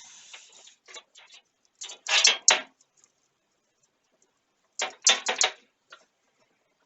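Handling noise from computer case parts and loose hardware: short bursts of rattling and rustling, in three main clusters with pauses between.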